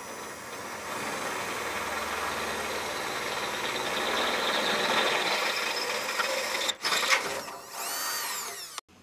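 Cordless drill with a 3/8-inch bit boring through a powder-coated metal skid plate: a steady grinding that grows louder as the bit cuts. Near the end the drill stops briefly, then its motor whines up and back down in pitch and cuts off.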